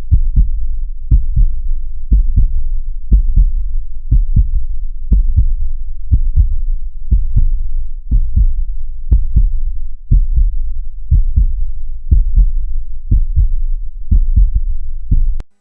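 Heartbeat sound effect: a steady double thump, lub-dub, deep and low, about once a second, cutting off suddenly near the end.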